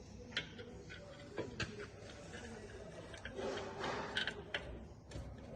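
Irregular clicks and taps of hand tools and parts as a rear brake caliper's mounting bolts are fitted, with a short scraping rustle about three and a half seconds in.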